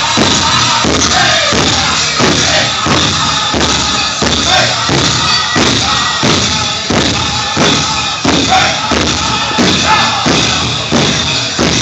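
Powwow drum group beating a big drum in a steady, even rhythm while the singers sing a prairie chicken dance song.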